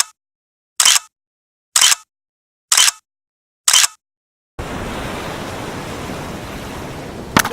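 A row of short, sharp hissing clicks about a second apart, then about halfway through a steady rush of sea-surf sound effect.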